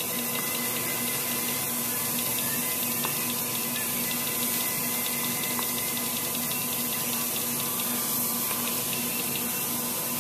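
1999 Chiron FZ18L CNC vertical mill running with its axes traversing: a steady, even hiss with a constant hum underneath.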